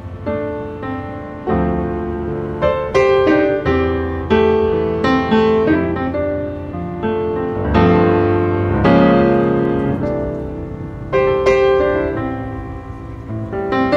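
Solo piano music: chords and melody notes struck and left to ring and fade, changing every second or so.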